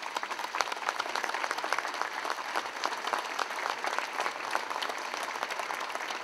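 Crowd applauding steadily at the end of a speech.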